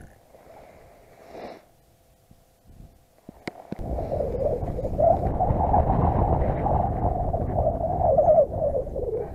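Wind buffeting the camera's microphone, starting suddenly about four seconds in as a loud rushing rumble with a wavering moan.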